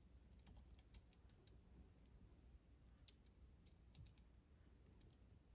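Faint, sparse clicks of small metal parts being handled and fitted back into a Necchi BF Mira sewing machine's upper thread tension assembly: a few in the first second, then single clicks about three and four seconds in.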